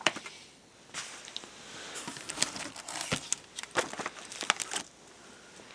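Comic books being handled and shuffled: a sharp click at the start, then a run of irregular clicks and rustles for about four seconds that stops near the end.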